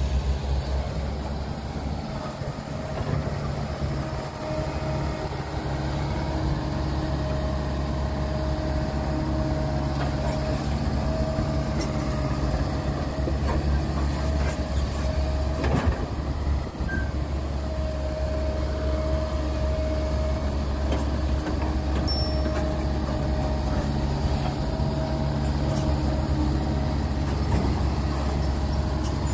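Caterpillar E120B tracked excavator's diesel engine running steadily under load with a steady whine on top, as it digs and loads dirt and rocks into a dump truck. One sharp knock about halfway through.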